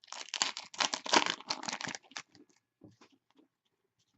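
Trading cards and their packaging being handled: dense papery crinkling for about two seconds, then a few light taps and clicks.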